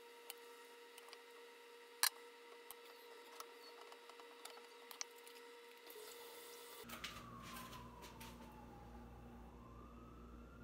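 Faint clicks and scrapes of a silicone spatula stirring noodles in a nonstick frying pan, with one sharper click about two seconds in. Near the end a faint tone falls and then rises over a low hum.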